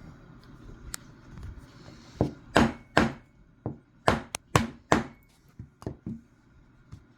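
Small hammer tapping a pin punch to drive the spring-loaded safety pin out of a Marlin Model 60 trigger guard. About a dozen sharp taps, loudest and quickest from about two to five seconds in, then a few lighter ones near the end.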